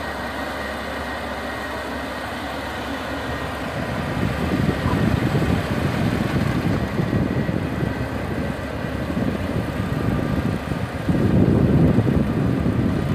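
Rice combine harvester running steadily as it cuts and threshes rice in the field, its engine and threshing works droning with a faint thin whine. It grows louder near the end.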